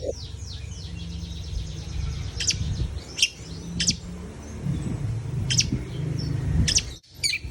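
Long-tailed shrike (cendet) calling: sharp, separate high chirps every second or so, with a quick run of repeated notes fading at the start. A low steady rumble sits underneath.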